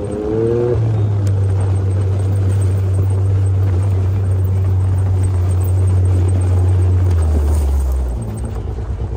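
Can-Am Maverick X3's turbocharged three-cylinder engine, with its muffler removed, running under steady throttle with a deep, even drone. A short rising whistle comes about half a second in, and the engine note drops lower about seven seconds in.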